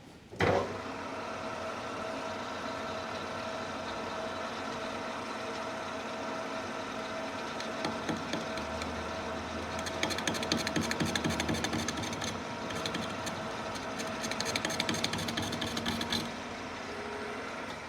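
A manual lathe starting up and running with a steady gear whine. Twice, from about ten seconds in, a fast dense rattling joins it, and the running sound drops away near the end.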